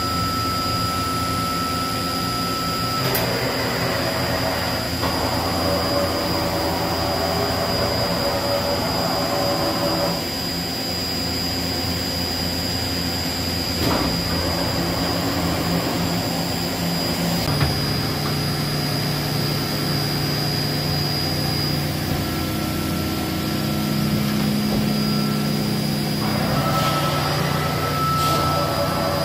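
Mazak Variaxis 730-5X five-axis machining centre running under power: a steady machine hum with pitched whines that change several times as the axes move the tilting rotary table and spindle head.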